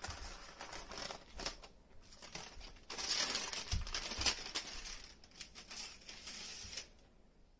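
Baking paper rustling and crinkling as a thin sponge cake sheet is handled and peeled off it, loudest from about three to five seconds in, with a few light knocks.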